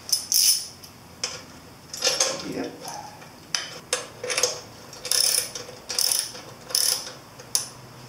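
Ratchet wrench with a 14 mm socket clicking in short, irregular bursts of strokes as it tightens a headlight mounting bolt.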